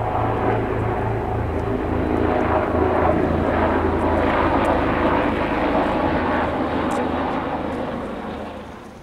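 Fixed-wing airplane flying past close by. Its engine noise is loud through the middle and fades away near the end.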